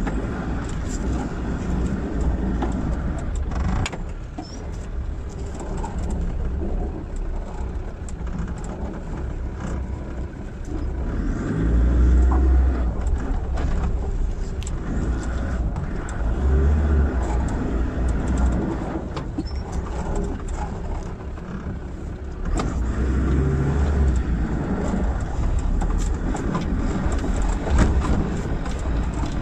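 Land Rover Defender Td5's five-cylinder turbodiesel engine pulling the vehicle slowly over a rough, rutted dirt track, with knocks and rattles as it bumps along. The engine note swells under load several times.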